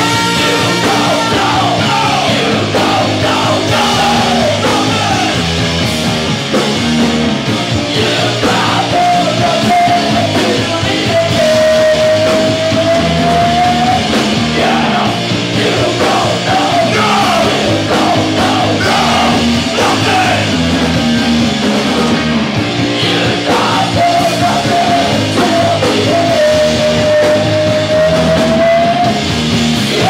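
Loud live ska-punk band playing: drums, electric guitar and bass under a horn section with saxophone. Twice a long held note rises and falls slightly over the band.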